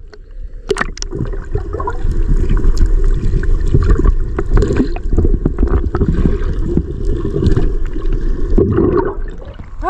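Muffled underwater water noise picked up by an action camera held below the sea surface: an uneven low rumble and gurgling of moving seawater against the camera housing, starting abruptly as the camera goes under.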